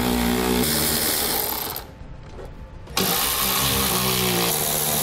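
Handheld cordless power tool spinning a socket to back out 10 mm splash-shield screws. It runs in two spells: it stops about two seconds in and starts again a second later.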